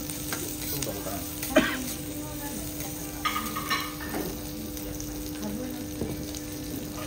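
Diced wagyu sizzling on a hot teppanyaki griddle while steel spatulas scrape and tap the plate. There is one sharp metal clack about a second and a half in, and a few lighter taps later.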